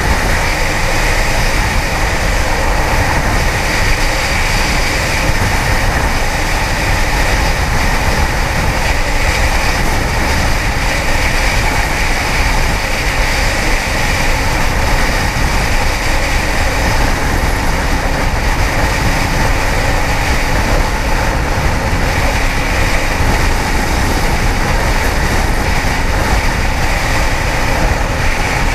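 Steady rush of wind on the microphone over a Kawasaki ZX-10R sportbike's inline-four engine running at a constant pace, with no revving up or down.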